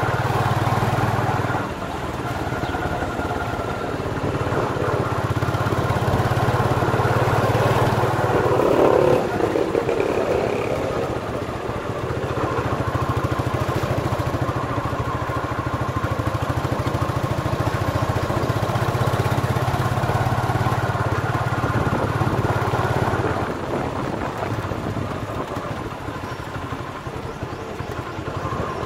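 Motorcycle engine of a motorized tricycle running as it rides along, heard close from the sidecar; the engine note drops back and picks up again a few times with the throttle. A brief louder burst of noise comes about nine seconds in.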